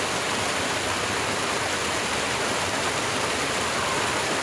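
Fast-flowing water in a ditch or channel, rushing steadily without a break.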